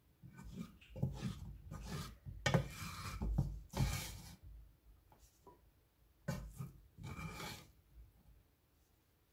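A cooking utensil scraping and scooping fried rice into a bowl: rasping scrapes for the first four seconds or so, then a second, shorter spell about six seconds in.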